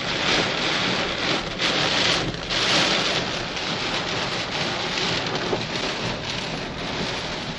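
Heavy downpour beating on a car's roof and windscreen, heard from inside the cabin, surging louder with gusts of strong wind between about one and a half and three seconds in.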